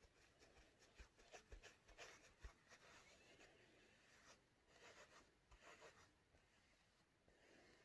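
Faint scratching of a wide flat paintbrush stroking black paint onto textured canvas, in runs of quick strokes with short pauses between.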